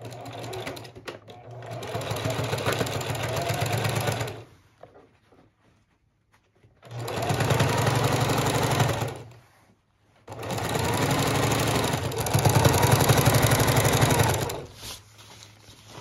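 Singer 4411 Heavy Duty sewing machine stitching a long seam through balloon fabric in three runs of steady stitching with short pauses between. The first run starts softly and grows louder about two seconds in, and the last run is the loudest.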